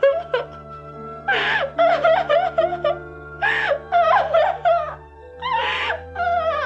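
A high voice sobbing and wailing in grief: long, wavering cries about every two seconds, over soft sustained background music.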